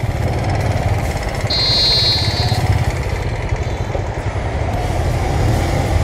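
Motorcycle engine running and wind rushing past a bike-mounted camera as the bike pulls away and rides on. A brief high-pitched tone, about a second long, sounds about a second and a half in.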